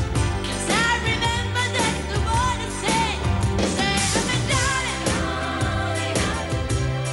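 Pop song: a woman's solo voice sings a melody with vibrato over a backing track of bass and a steady drum beat.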